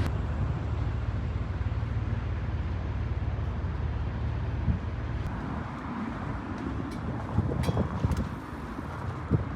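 Outdoor city traffic ambience: a steady low rumble of passing vehicles, easing a little about halfway, with a few short clicks and knocks in the second half.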